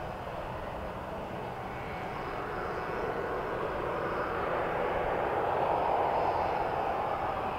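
Jet airliner's engines running, a steady roar that swells gradually, peaks about six seconds in and eases slightly near the end.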